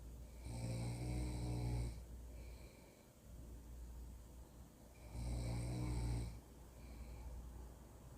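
A person snoring really loud: two long snores of a little over a second each, about four and a half seconds apart, each followed by a fainter, shorter sound, over a steady low hum.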